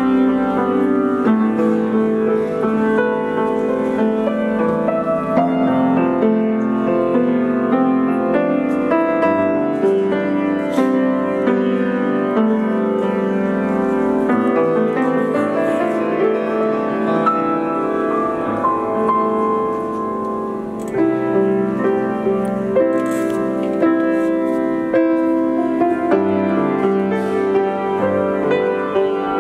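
Solo piano music played on a grand piano, with held chords and a melody over them.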